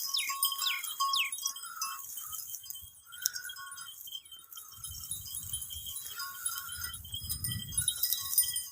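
Flock of sheep bleating now and then, over steady tinkling, bell-like chiming.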